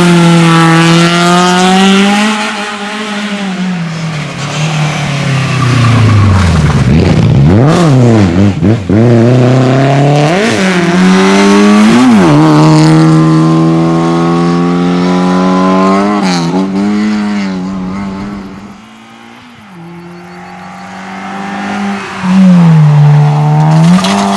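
Rally car engine at high revs under hard driving. The revs drop and climb sharply several times around the middle, the quick falls and rises of braking, downshifts and throttle blips. The engine then fades for a few seconds before coming back loud near the end.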